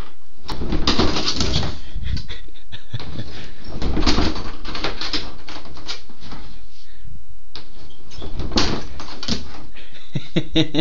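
A man making weird laughing, cooing noises in several short bouts of rapid pulses.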